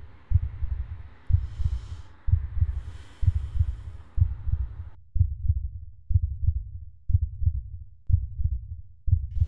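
Heartbeat sound effect: slow, steady deep double thumps, about one a second.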